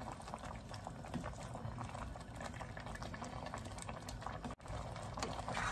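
Thai cassia-leaf curry (kaeng khi lek) simmering in a pan on a gas burner, bubbling with many small pops, stirred with a wooden spatula.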